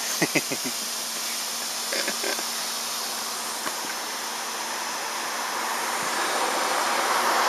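Lawn sprinkler spraying water in a steady hiss that grows louder toward the end as the spray swings back around.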